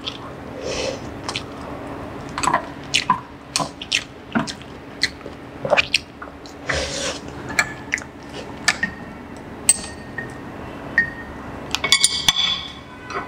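Chopsticks dipping and swishing slices of beef in vinegar hotpot broth, with small liquid splashes and drips and scattered clicks of the chopsticks against the pot. A faint steady hum runs underneath, and a quick run of sharper clicks comes near the end.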